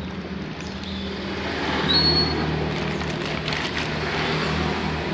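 Clear plastic parts bag crinkling and rustling as it is handled, over the steady hum of an engine running in the background. A brief high squeak about two seconds in.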